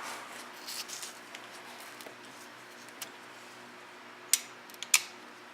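A few sharp metallic clicks and clinks of hand tools and bolts being handled, the two loudest about four and a half and five seconds in, over a faint steady hum.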